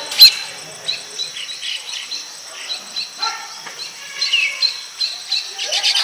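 Baya weavers chattering around their nests: a stream of short, high chirps mixed with a few sliding notes. The calls thin out in the middle and pick up again near the end.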